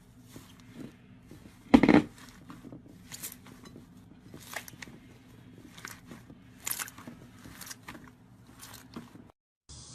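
Slime being squeezed and poked by hand, making irregular short crackles and pops, with one louder crunchy squish about two seconds in.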